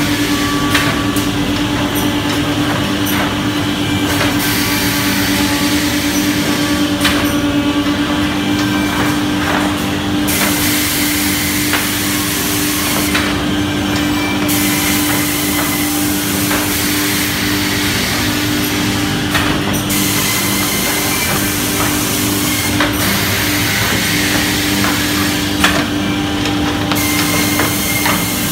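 JESH six-line multi-spindle boring machine running through its drilling cycles: a steady motor hum, with a hissing rush that comes and goes every few seconds and a few short knocks as the heads and clamps work.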